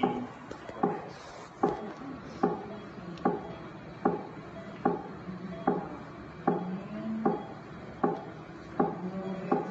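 Delivery-room heart monitor playing a heartbeat sound: even thumps about 75 times a minute, each fading quickly.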